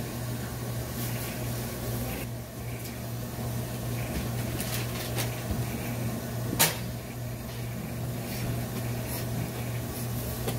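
A steady low machine hum, with one sharp click about six and a half seconds in.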